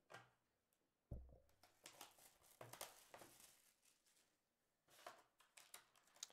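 Faint handling noises as a sealed Panini Plates & Patches football card box is opened: a soft thump about a second in, then tearing and rustling of the seal and cardboard, and a few light clicks near the end.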